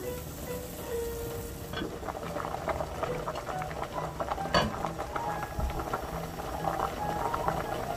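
Pot of fresh-seaweed soup (miyeokguk) at a rolling boil, bubbling with many small pops and crackles. A single sharp knock comes about four and a half seconds in.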